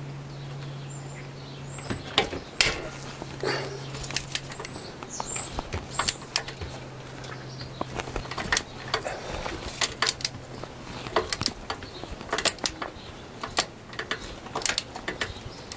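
Socket ratchet clicking in short, uneven runs of sharp ticks as it turns an engine-mount nut loose, over a low steady hum that stops about eleven seconds in.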